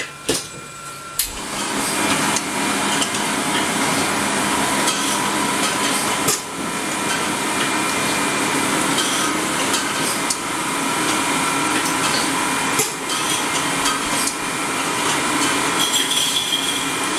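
Machinery of a juice bottle-filling line running, a steady clatter full of small knocks and clinks. It is quieter for the first second or so, then steady.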